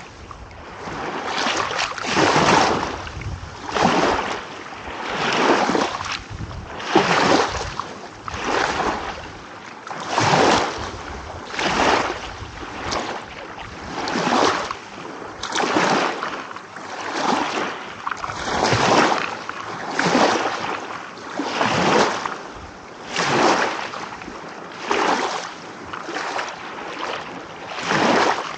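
Small sea waves rolling in and breaking one after another, each a swell of surf noise that rises and falls away, about one every one and a half seconds.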